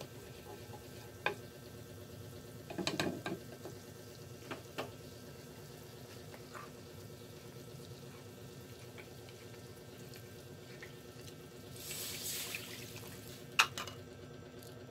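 Butter and garlic sizzling faintly in a steel pan, with scattered taps and scrapes of a wooden spatula. Near the end the gravy liquid is poured into the hot butter with a brief hiss, followed by a sharp knock.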